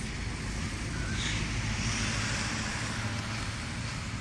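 A car driving past close by: its tyre and road noise swells about a second in and fades near the end, over a steady low rumble.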